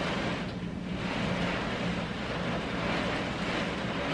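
Hurricane wind and rain buffeting a closed window, heard from inside the room, the noise rising and falling in gusts over a steady low hum.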